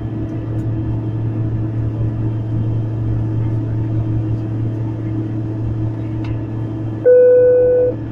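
Steady drone of an aircraft's engines heard inside the cabin in flight, a low even hum. About seven seconds in, a loud flat electronic beep sounds for about a second and cuts off suddenly.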